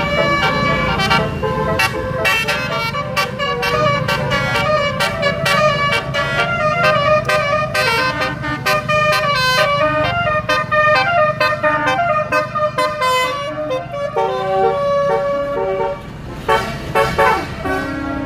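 Bus telolet horns playing quick multi-note melodies, note after note, over the low rumble of bus engines as two buses trade horn tunes. The horn play thins out about sixteen seconds in, leaving a few separate notes.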